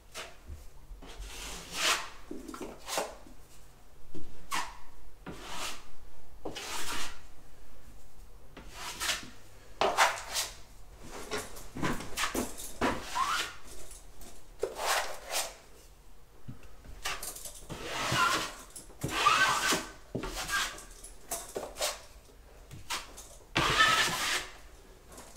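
A six-inch drywall knife spreading and scraping joint compound over drywall, in a long run of irregular scrapes and smears, some with a faint squeak near the end.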